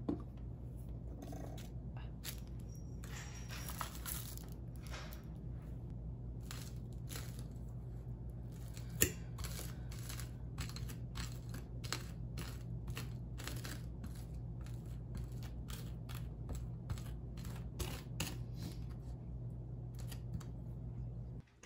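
Fork mashing and spreading avocado on toast on a plate: a long run of short scrapes, with one sharper click about nine seconds in, over a steady low hum.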